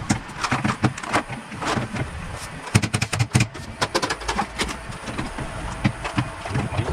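Irregular sharp clicks and light knocks, some in quick runs, from hand work with tools and fittings.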